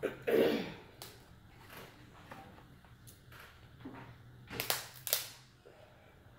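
Cooked king crab legs being snapped and their shells cracked apart by hand, a series of sharp cracks and snaps. The loudest come just after the start and twice, about half a second apart, nearly five seconds in.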